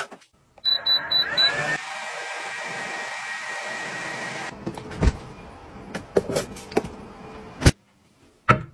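Portable electric clothes dryer starting up: four quick beeps from its control panel, then its fan blows with a steady rushing air noise that cuts off suddenly after about three and a half seconds. A few scattered knocks and thumps follow.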